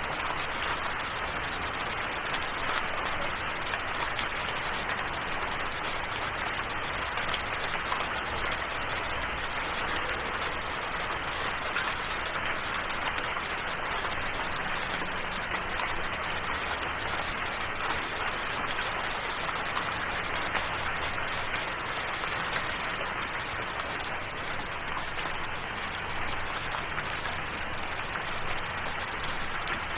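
Steady rain falling: an even hiss of rain with faint scattered drop ticks.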